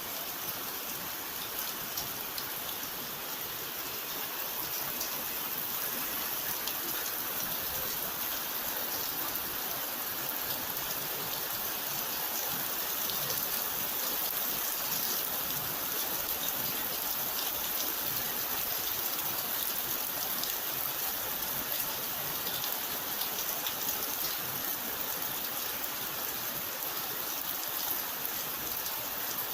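Steady rain falling, a dense, even patter of many drops hitting a surface.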